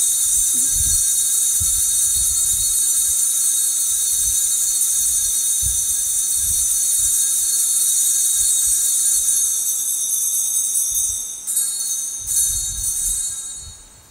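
Altar bells ringing continuously at the elevation of the consecrated host, a steady high-pitched ringing that changes about eleven seconds in and fades out near the end.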